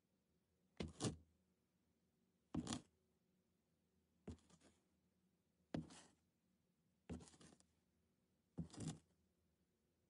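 Foley footsteps on a gritty surface: six slow, separate steps about a second and a half apart, each a short scuff, some with a double hit.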